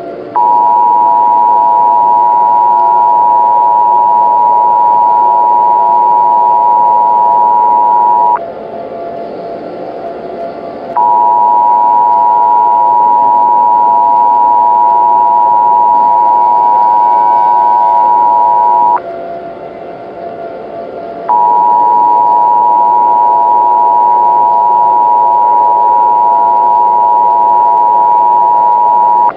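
Emergency Alert System attention signal: a steady two-tone alarm, sounded three times for about eight seconds each with short gaps between, over a fainter steady background noise.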